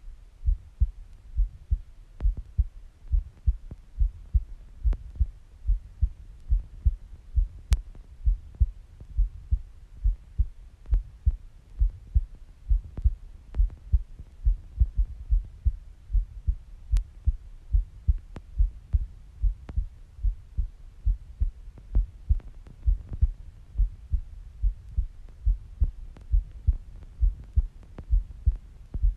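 A woman's heartbeat recorded close up: a steady, even rhythm of low thuds.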